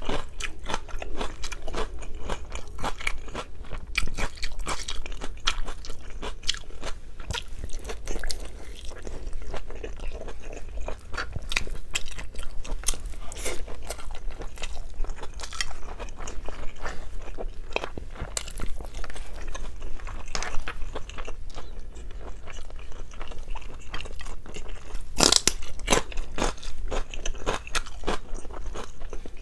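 Close-miked chewing of food with crunching bites, the ASMR sound of a mukbang, with two louder crunches about 25 seconds in.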